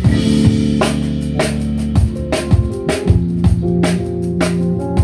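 Live ethnic fusion band playing: a drum kit beating about twice a second over bass and held pitched notes.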